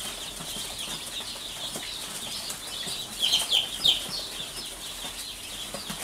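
Day-old chicks peeping in a box: scattered short, high cheeps, each sliding down in pitch, with a louder cluster of them about three seconds in.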